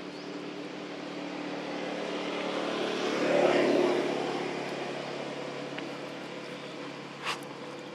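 A motor vehicle's engine passing by, swelling to its loudest about three and a half seconds in and then fading. A brief sharp sound comes near the end.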